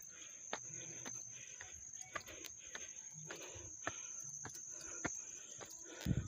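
Insects singing with a steady high-pitched drone, over the footsteps of someone walking at about two steps a second. A low thump comes near the end.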